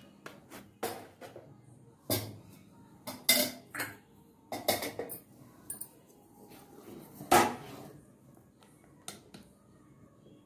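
Stainless-steel kitchenware knocking and clinking as a steel plate, a batter bowl and a ladle are handled around a gas stove: about ten separate sharp knocks and clinks, the loudest about seven seconds in.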